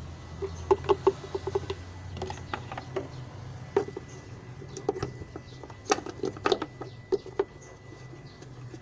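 Oil filler cap being handled and screwed down on the valve cover of a Mitsubishi 6M61 diesel engine: a quick run of small clicks about a second in, then a few separate taps and knocks, over a steady low hum.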